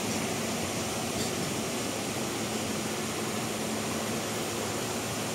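Freight wagons of a pulp train rolling along the rails, a steady rumble as the tail of the train goes by.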